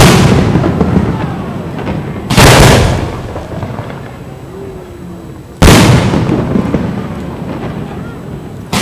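Aerial firework shells bursting overhead: loud sharp booms about three seconds apart, each followed by a rumbling echo that fades over a couple of seconds.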